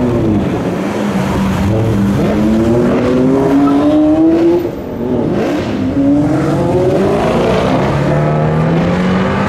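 Twin-turbocharged Lamborghini Aventador LP700-4's V12 accelerating hard away, its engine pitch climbing steadily. It changes up a gear about four and a half seconds in and again near eight seconds, the pitch dropping each time before rising again.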